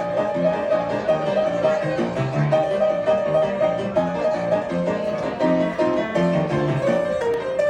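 Instrumental music with a steady beat and a melody line.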